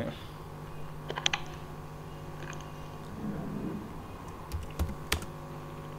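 A few scattered computer keyboard keystrokes: a quick cluster about a second in, then single clicks later on, over a steady low hum.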